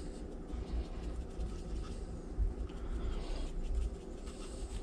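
Dry seasoning being shaken from a shaker onto raw fish fillets on a baking tray, over a steady low rumble.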